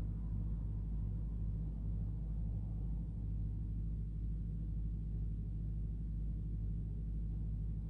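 Steady low rumble with a few even, low humming tones and no sudden sounds.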